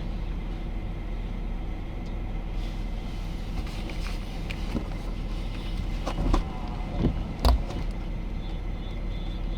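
A vehicle running steadily with a low hum, and a few short knocks about six, seven and seven and a half seconds in.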